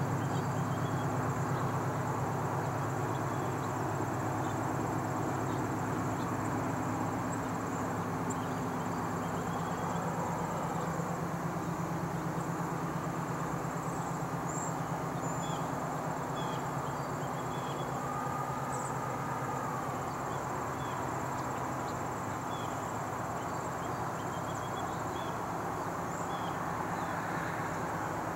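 GE AC6000CW diesel-electric locomotive's V16 engine running under load at a distance as it leads a loaded ore train, a steady low rumble. Insects chirp faintly over it.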